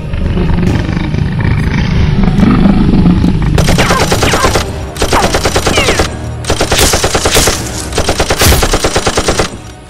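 Dubbed-in machine-gun sound effect: several bursts of rapid automatic fire, starting about three and a half seconds in, each lasting around a second, with short breaks between them. A low rumble comes before the first burst.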